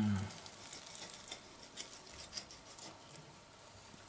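Kitchen knife cutting through the belly meat and fat of a raw nutria carcass: faint scattered clicks and soft wet handling sounds. A short hummed voice at the very start is the loudest sound.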